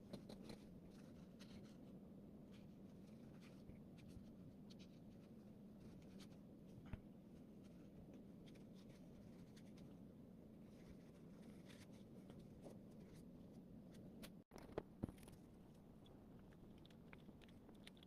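Near silence: faint room tone with scattered small clicks and scratches, and two sharper clicks about fifteen seconds in.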